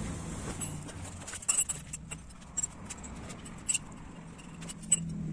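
Light clinks and knocks of an aluminium motorcycle crankcase half and small parts being handled and set down, a few scattered sharp clicks, over a faint low hum.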